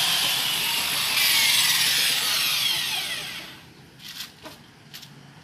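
Electric rotary car polisher running, then switched off: about a second in its whine starts falling in pitch as the motor spins down, fading out over about two seconds. A few light knocks follow near the end.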